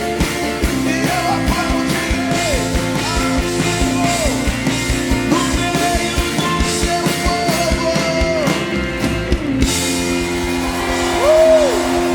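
Live worship band playing a song: a steady drum beat under sustained chords, with a voice singing long sliding notes over it.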